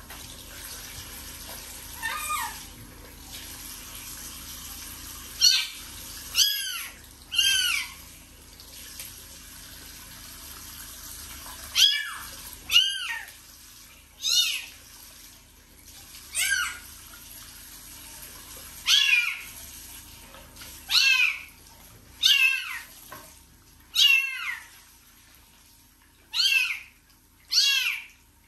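Very young kitten mewing over and over, about fourteen short, high-pitched cries that rise and fall, as it is washed under running water in a sink. Tap water runs steadily underneath.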